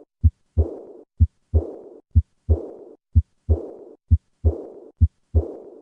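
Heart sounds of aortic regurgitation, about one beat a second. Each beat is a short first sound, then a second sound followed at once by a fading, high-pitched diastolic murmur: the regurgitant leak back through the aortic valve.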